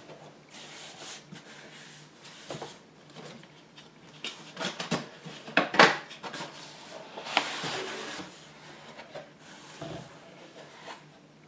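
A product box and its packaging being opened and handled by hand: rubbing and sliding hiss with scattered knocks and clicks, the loudest about six seconds in.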